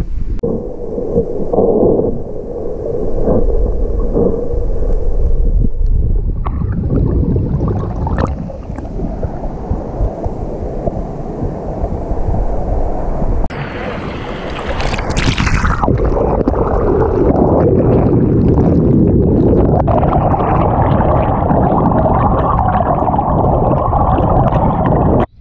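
Creek water rushing over rocks and a small cascade, heard through a camera dipped in and out of the water. The sound is a dense, muffled rush most of the time, with a brighter splashing burst about halfway through.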